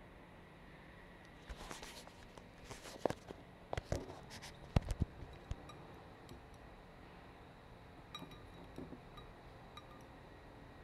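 Scattered clinks and knocks of plates and cutlery at a meal table: a cluster of sharper hits in the first half, then a few light ticks later.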